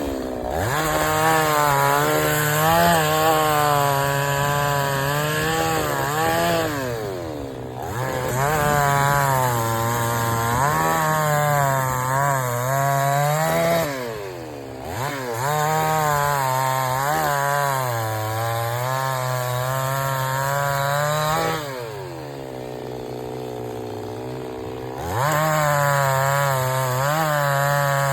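Two-stroke chainsaw cutting wood, its engine pitch wavering under load. The engine drops back toward idle three times: about a quarter of the way in, near halfway, and for a few seconds past the three-quarter mark, revving up again each time.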